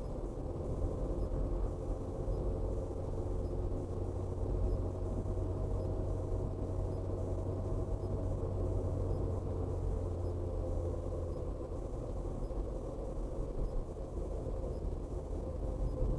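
A car's engine and tyre noise heard from inside the cabin as it drives along at steady speed: a steady low hum with a faint held tone over it.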